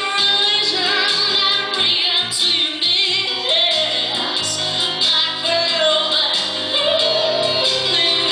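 A woman singing live into a microphone, holding long notes with vibrato over a low accompaniment.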